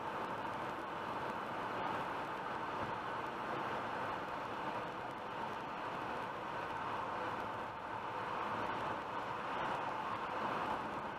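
Steady road and tyre noise inside a car cruising on a highway at about 100 km/h.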